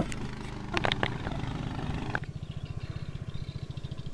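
A small engine running steadily, with a few sharp knocks about a second in; from about two seconds in it runs with a quick, even putter.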